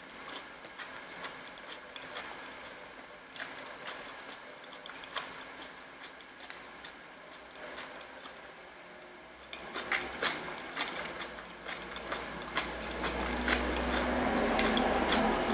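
Close-up eating sounds: chewing, and a plastic fork scraping and clicking against a plastic takeout tray and a small plastic dip cup. The clicks get louder about two-thirds of the way in, and a low rumble builds over the last few seconds, then stops suddenly.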